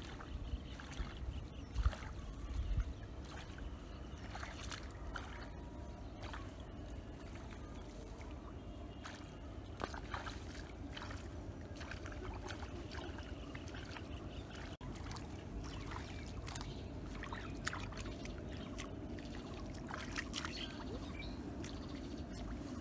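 Shallow muddy floodwater trickling and splashing lightly in short, scattered bursts as hands grope through the mud and weeds, over a steady outdoor hiss. A few low thumps come about two seconds in.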